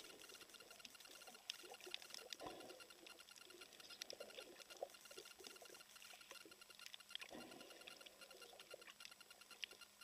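Faint underwater crackling and scattered clicks on a coral reef, with a couple of short bubbly swishes of moving water.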